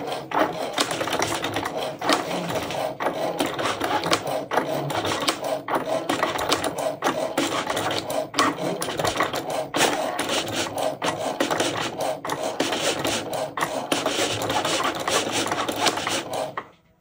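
Cricut cutting machine cutting a vinyl decal from a roll of smart vinyl: its motors whir and click quickly and irregularly as the blade carriage shuttles back and forth. The sound stops abruptly near the end as the cut finishes.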